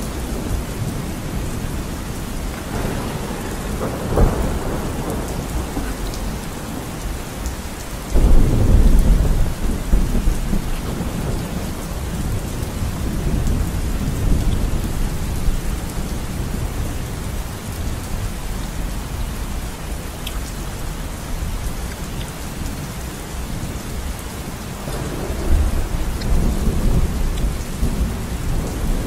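Steady rain with thunder rumbling several times, the loudest roll about eight seconds in.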